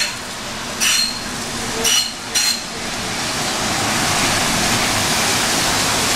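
Arriving steam locomotive passing close. There are three short high metallic rings or squeals in the first two and a half seconds, then a steady hiss of steam that builds up as the engine comes alongside.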